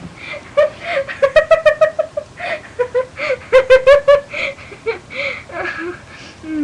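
Girls laughing in runs of rapid, high-pitched giggles, with the hardest bursts about a second in and again around three and a half seconds in.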